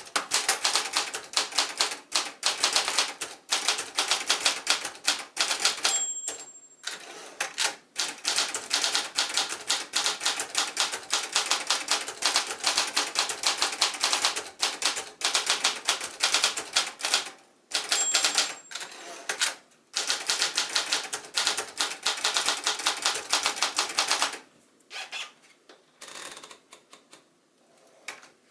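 1977 Brother Accord 10 manual portable typewriter being typed on: rapid, uneven runs of sharp key and typebar clicks with short pauses. A brief ringing tone sounds twice, about six and eighteen seconds in, typical of the end-of-line margin bell. The typing stops about 24 seconds in, leaving a few scattered quieter clicks.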